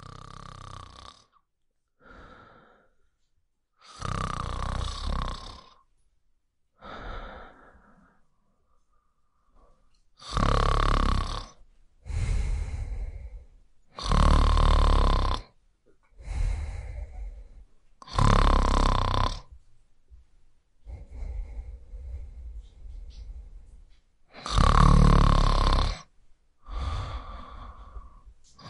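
A person snoring, one drawn-out snore or breath about every two seconds. The snores are fainter over the first ten seconds or so and much louder after that.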